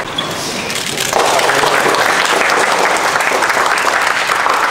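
A crowd applauding, growing louder about a second in and then holding steady.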